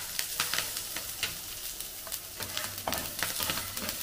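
Tempering spices sizzling and crackling in hot oil in a frying pan: curry leaves, dried red chillies and cumin, mustard, fenugreek and fennel seeds, with many quick pops over a steady hiss. A metal spatula stirs them near the end.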